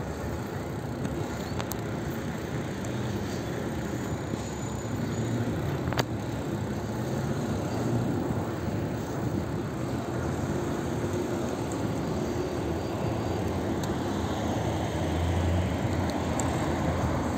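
Street traffic and riding noise heard from a moving bicycle: a steady low rumble with the drone of passing car engines, and one sharp click about six seconds in.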